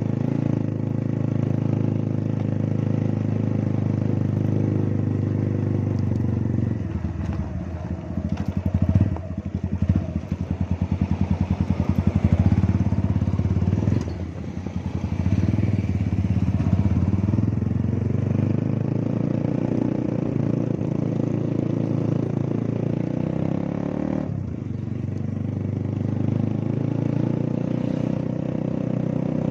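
Motorcycle engine running during a ride, heard from the rider's seat. For several seconds about a quarter of the way in it drops to a rapid even pulsing, then picks up again and runs steadily.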